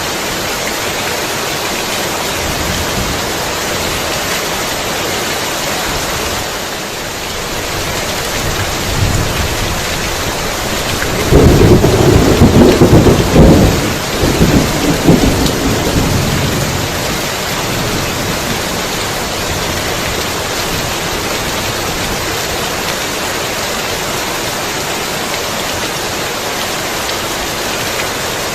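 Heavy rain falling steadily, with a thunderclap near the middle: a low rumble builds, peaks loudly for about three seconds, then fades back into the rain.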